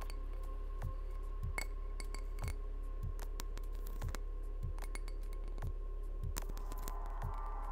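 Layered ambient electronic track: a steady low drone and held tones with soft low thumps every half second to a second, overlaid with sharp glassy clinks and taps. About six seconds in, a denser shimmer of chime-like tones comes in.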